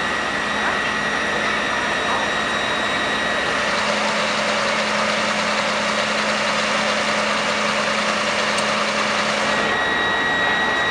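Fire engine's diesel engine running steadily at the scene to drive its water pump, with a steady high whine that drops out about four seconds in and returns near the end.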